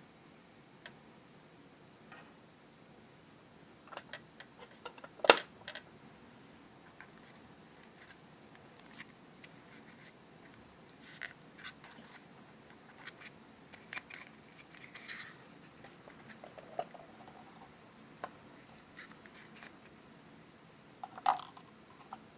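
Small plastic toy kitchen pieces and a miniature cardboard milk carton being handled: scattered light clicks, taps and scrapes, with a sharp knock about five seconds in and another near the end.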